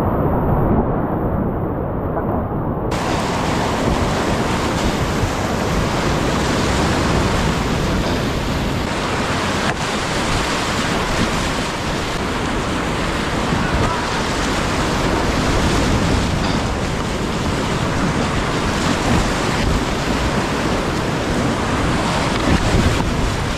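Whitewater rushing in a steep, boulder-choked creek: a steady, loud wash of rapids.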